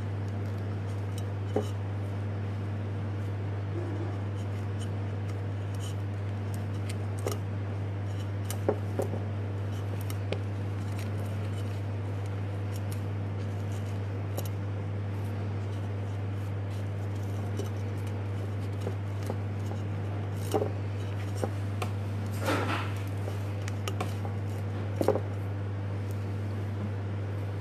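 Steady low electrical hum, with scattered soft rustles and small clicks from sheer patterned fabric being pinched and folded by hand.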